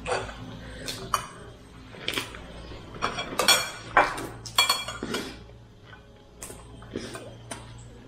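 Tableware and utensils clinking and knocking at a meal, a run of sharp clinks, some with a short ring, busiest about three to five seconds in.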